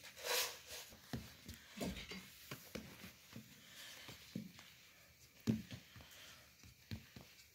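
Faint, irregular soft pats and light knocks of hands pressing and spreading pizza dough in a metal pizza pan.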